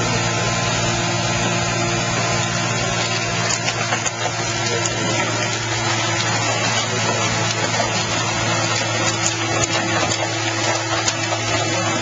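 Car baler's hydraulic power unit running steadily, a constant low hum with a few light metallic ticks in the second half.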